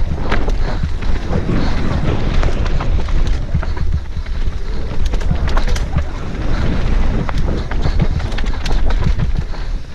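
Mountain bike descending a rough dirt trail at speed, heard from a helmet-mounted camera: heavy wind buffeting on the microphone over tyres skidding and crunching on dirt and rocks, with frequent sharp clicks and knocks as the bike clatters over bumps.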